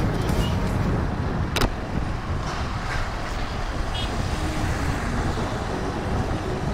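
Wind rushing over the microphone of a moving motorcycle, with its engine and the surrounding road traffic underneath. There is a single sharp click about a second and a half in.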